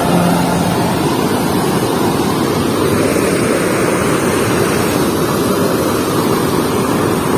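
Steady rush of river water pouring through the open sluice gate of a movable weir and churning below it.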